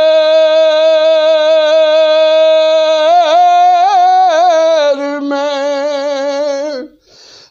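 A solo male voice singing an Urdu naat: a long held note, then quick wavering turns about three seconds in, settling onto a lower held note. The voice breaks off briefly near the end and comes back in.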